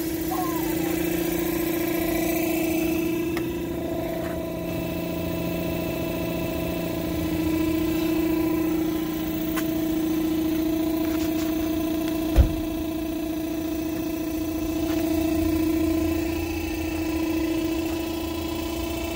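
Electric air pump running with a steady droning hum that swells and eases slowly, pushing air through a sand bed to fluidize it. One sharp low thump about twelve seconds in.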